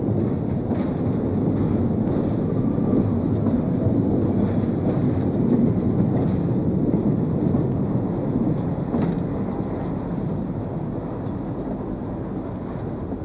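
Freight train of car-carrying rail wagons rolling past: a steady low rumble with a few faint wheel clicks, slowly fading toward the end.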